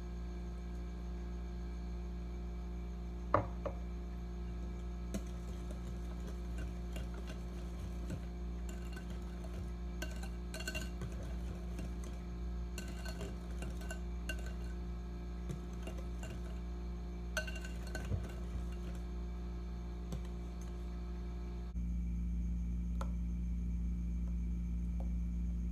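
Wire whisk stirring cheesecake batter in a glass mixing bowl, with scattered light clicks of the whisk against the glass, over a steady low hum.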